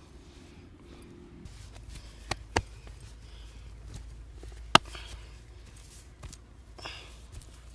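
Head and neck massage: a few sharp cracks, two close together a little over two seconds in and the loudest just before five seconds in, over a low steady hum that comes up about a second and a half in.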